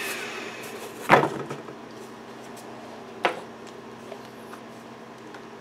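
Two knocks of a thin MDF sheet being handled and set down on a wooden router table, the first louder, about two seconds apart. At the start the router is still winding down, its whine falling and fading out.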